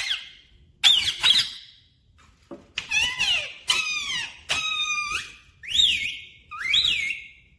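Rose-ringed parakeet giving a string of squeaky whistles and chirps, several sliding down in pitch, ending with two calls that rise and then hold a steady whistle.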